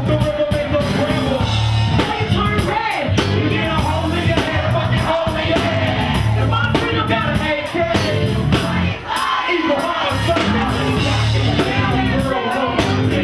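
A woman rapping into a microphone over loud band music with a heavy, pulsing bass beat.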